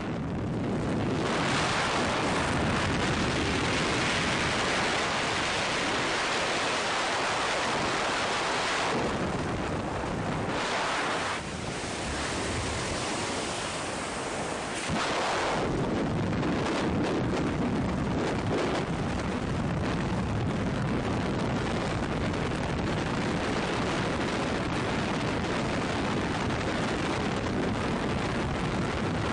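Strong wind rushing over the microphone: a steady, dense roar of wind noise that dips for a few seconds about eleven seconds in, then comes back as strong as before.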